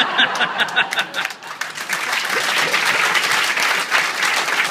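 Audience applauding steadily, many hands clapping in a large room.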